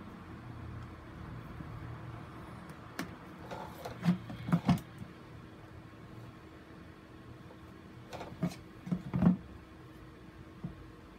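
Plastic mounting grid board clattering against a plastic crate as it is turned and handled: two short clusters of clicks and knocks, about four seconds in and again about nine seconds in.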